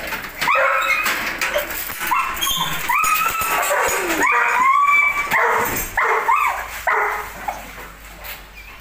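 Belgian Malinois whining and yipping, a rapid run of short high-pitched calls that slide up and down in pitch, dying away near the end.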